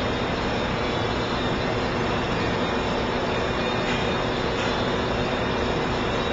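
Steady, unbroken machinery running noise with a few constant hum tones, no cutting strokes or impacts.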